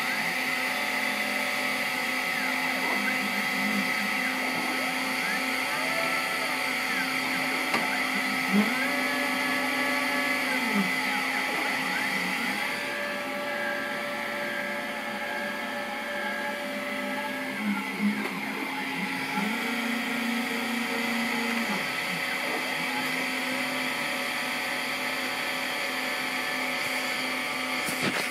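CNC 3018 engraving machine running a laser engraving job: a steady hum, over which the stepper motors whine, their pitch rising and falling as the axes speed up and slow down between moves.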